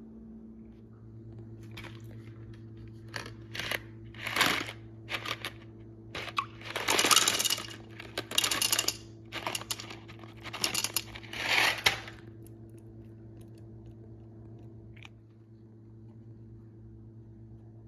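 Reese's Pieces candies clattering and rattling against a plastic miniature toilet in a run of irregular bursts, the loudest about 7 to 12 seconds in, over a steady low hum.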